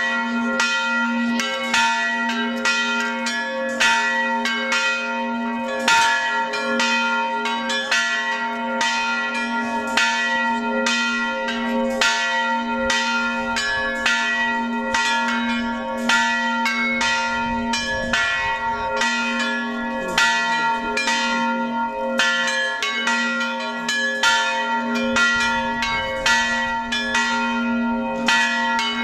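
Church bells being rung: several bells of different pitches struck in a quick, uneven rhythm, two or three strikes a second, over the steady hum of a deeper bell.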